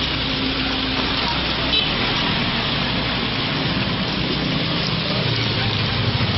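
Water spraying from a hose onto passing vehicles: a steady hiss of spray. A vehicle engine grows louder near the end.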